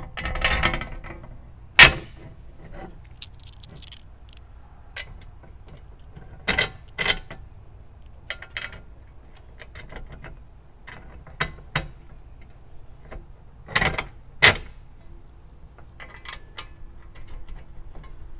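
Metal screws clinking and tapping against a metal mounting plate and its clamp brackets as they are fitted by hand, in scattered sharp clicks, the loudest about two seconds in.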